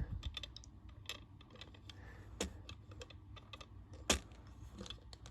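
Light plastic clicking from a small toy gumball machine being handled, with two sharper clacks about two and a half and four seconds in.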